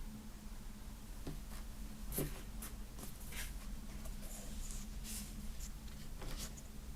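Hands handling a music box set's cardboard and paper packaging: scattered light scratching, rustling and soft taps, busiest in the middle, over a steady low hum.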